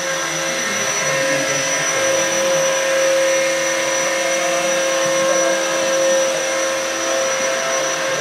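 Radio-controlled model helicopter flying: a steady motor and rotor whine with several fixed tones over a high hiss. One of the lower tones drops out about seven seconds in.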